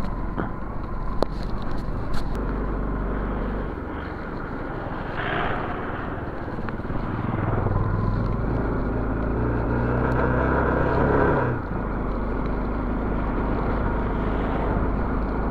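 Motorcycle engine pulling uphill through slush. Its note rises and grows louder from about seven seconds in, then drops suddenly about eleven and a half seconds in.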